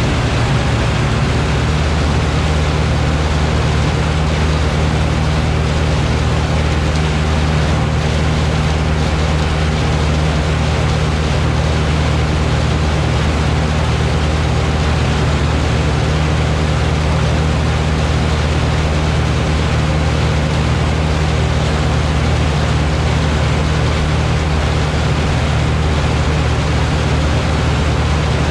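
Large diesel farm machinery engine running steadily, with a constant low hum under a wide rushing noise.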